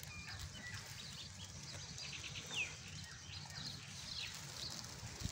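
Small birds chirping: scattered short, high, falling chirps, over a faint low steady rumble.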